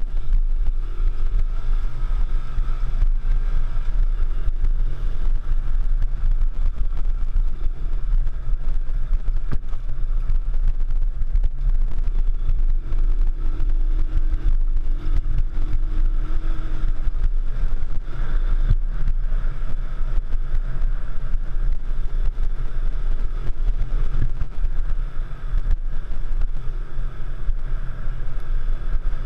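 A single-cylinder Honda trail motorcycle is running while being ridden off-road, its pitch rising and falling with the throttle. Heavy wind rumble on the microphone runs under it.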